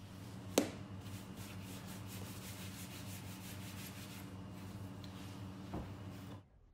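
Hands rolling baguette dough back and forth on a floured wooden workbench, a steady rubbing swish over a low hum. A sharp knock about half a second in is the loudest moment, and a softer knock comes near the end. The sound stops suddenly just before the end.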